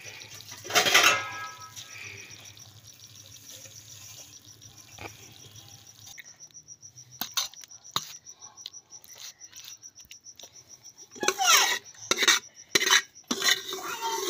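Metal ladle scraping and clattering against a steel plate as a cooked saag curry is served out, in a few sharp bursts, loudest near the end. A cricket chirps steadily throughout, and a low hum stops about six seconds in.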